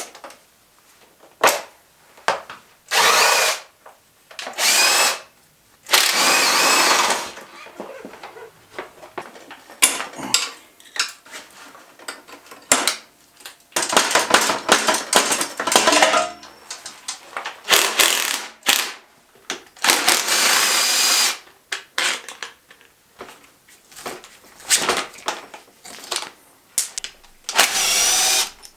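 Handheld power driver spinning in repeated bursts of about a second each, with a pitch that rises and falls, as fasteners are backed out of a KTM 300 dirt bike. Short clicks and clanks of tools and parts fall between the bursts.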